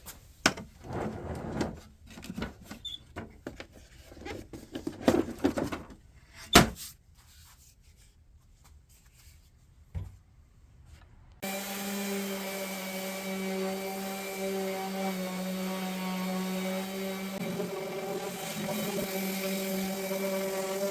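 Irregular knocking and rubbing of wood being handled, with one sharp knock, then after a quiet pause a small electric motor starts and runs with a steady hum.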